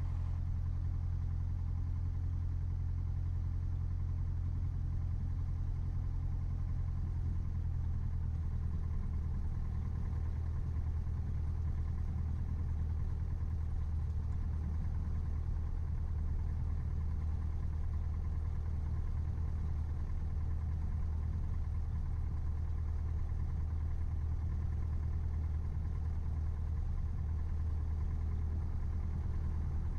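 Piper PA-28-161 Warrior's four-cylinder Lycoming engine running steadily at low taxi power: an even, low drone.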